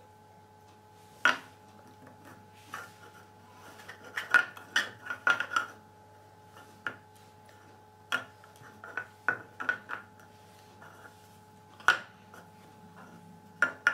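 Picture puzzle cubes clacking and knocking on a wooden tabletop as a child's hands turn them and set them down. Scattered sharp knocks, with quick runs of them about four to six seconds in and again about eight to ten seconds in.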